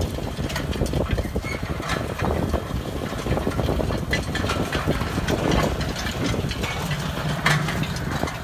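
Tractor's diesel engine running steadily as it pulls a mounted row-crop cultivator through the soil between corn rows, with scattered rattles and knocks from the cultivator.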